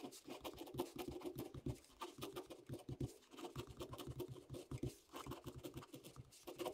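Ballpoint pen writing on graph paper: a quick run of faint scratching strokes as the pen tip draws letter after letter.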